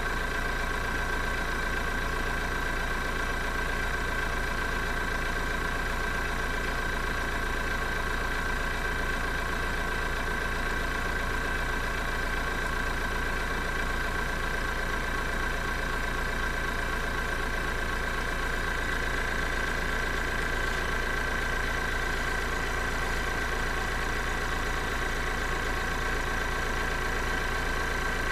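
Electric air compressor's motor and pump running continuously with a steady high tone over a low hum, not cutting out at 40 psi. Air is leaking at a seal on the pump.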